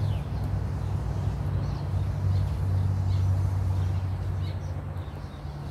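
A steady low hum with a few faint, short bird chirps over it.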